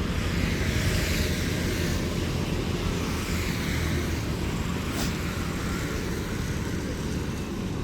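Road traffic going by: a steady rumble with tyre noise, and one sharp click about five seconds in.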